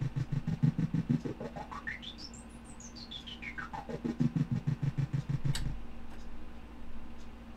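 Homemade analog modular synthesizer playing through a speaker: a tone slowly sweeps up to a high peak and back down, over a low buzz that is chopped on and off about eight times a second by a gate. A sharp click comes a little over halfway through, after which the chopped buzz stops and only a low hum is left.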